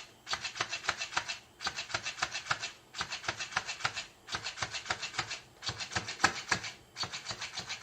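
Fast rasping, scratching strokes in six bursts, each about a second long, with short pauses between them.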